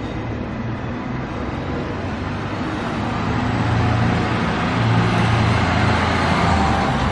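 Natural-gas-powered articulated city bus pulling away and passing close by, its engine hum and road noise building to a peak about four to six seconds in.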